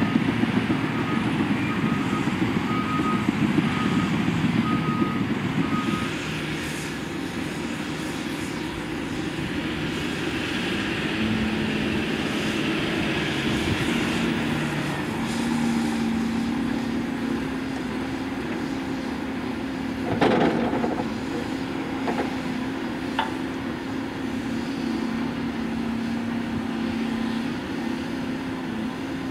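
Diesel engines of heavy earthmoving machines, a Cat 330F excavator and Cat 730C articulated dump trucks, running steadily. A reversing alarm beeps about once a second over them for the first few seconds. About two-thirds of the way through comes one heavy thud, a bucketful of earth dropping into a dumper's body.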